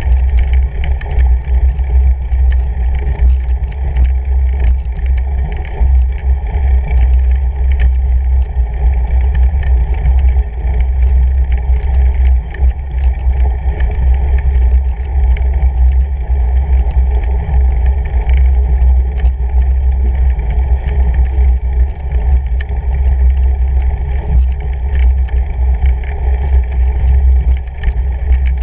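Ride noise from a fatbike climbing a snow-covered gravel road: a loud, steady low rumble of the knobby fat tyre rolling over snow, picked up through the bike-mounted camera, with faint small ticks throughout.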